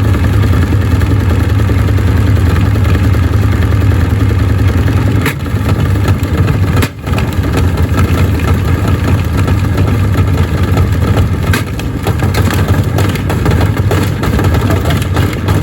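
Gorenje washing machine running with heavy bricks in the drum: a loud, steady rumble with a few sharp knocks, dipping briefly about seven seconds in.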